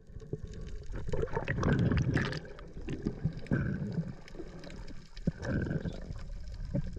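Underwater sound picked up by a diving camera on a reef: muffled churning and gurgling of water, loudest between about one and a half and two and a half seconds in, with scattered sharp clicks.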